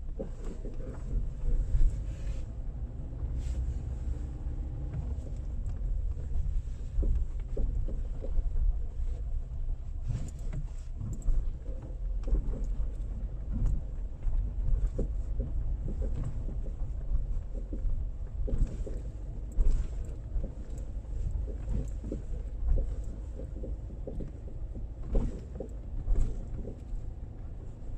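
Irregular short knocks from a VW Polo's front or rear suspension while the car is driven, over a steady low rumble of road and running noise. The knocking is the unexplained suspension fault the owner is trying to identify.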